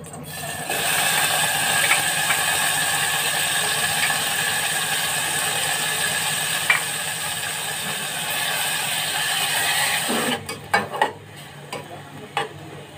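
Marinated chicken pieces sizzling in hot oil in an aluminium saucepan. The sizzle starts about a second in, after the chicken is poured in, then holds steady. It dies down near the end, when a few spoon clicks against the pan are heard as the chicken is stirred.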